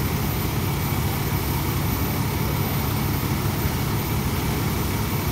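Heavy diesel engine of fire apparatus running steadily at high revs to drive the master stream, a constant low drone.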